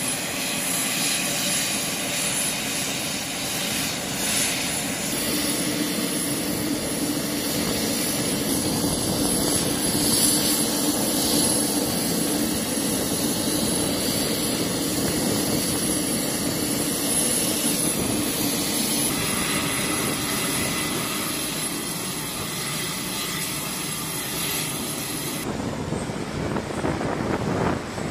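Steady aircraft engine noise on an airfield ramp, a continuous dense rush with no breaks. Near the end the sound abruptly turns duller as the high end drops away.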